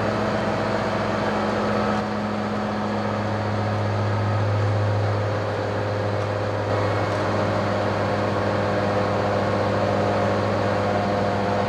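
Heavy diesel engine running at a steady idle: a deep, even hum.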